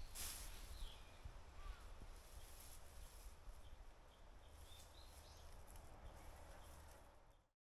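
Faint outdoor ambience with a steady low rumble, a few short bird chirps and a light knock just at the start; it cuts off abruptly into silence near the end.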